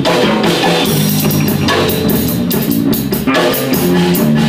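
Electric bass guitar and drum kit playing a rock jam live, the bass holding low notes under steady cymbal and drum strokes.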